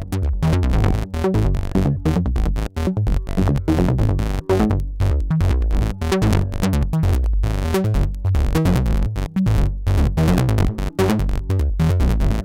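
Make Noise System Cartesian Eurorack modular synthesizer playing a sequenced bass line of rapid short notes, stepped by the René Cartesian sequencer. The oscillator is run through the LXD low-pass gate to generate a sub-octave, which puts most of the sound in a deep low end.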